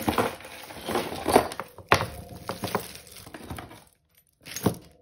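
A heap of costume jewellery (chunky plastic and glass beads, metal chains and bracelets) clattering and clinking as it is tipped onto a cloth-covered table and spread out by hand, with a run of sharp clacks about a second and a half in and a last clack near the end.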